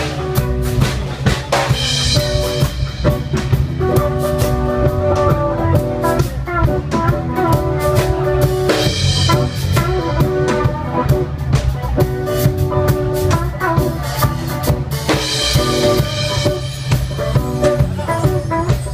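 Live band playing instrumental music: a drum kit keeps a steady beat under held chords, with a cymbal crash about two seconds in, another about nine seconds in, and one near the end.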